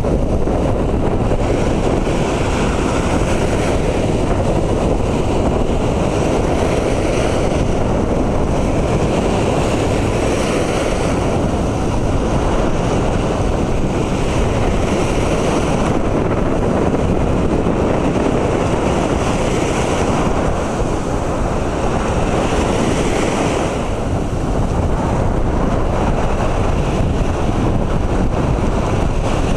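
Sea surf breaking and washing in, its hiss swelling and easing every few seconds, under steady wind rumbling on the microphone.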